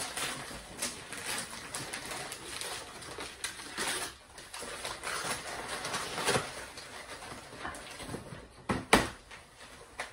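Gift wrapping paper crinkling and tearing as a present is unwrapped, then a cardboard shoe box being handled and opened, with a sharp knock near the end.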